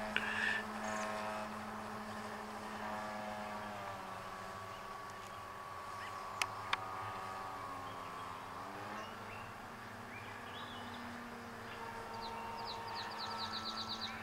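Electric motor and propeller of a scratch-built Short Mussel radio-controlled model plane in flight: a steady buzzing drone whose pitch shifts as the throttle changes. The motor has a loose bearing, which gives it an unusual sound. Two sharp clicks come a little past halfway.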